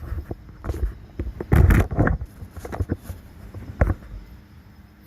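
Handling noise around a cordless drill and oak board: a few knocks, a louder rough burst of noise about one and a half seconds in lasting about half a second, and a sharp click near the four-second mark.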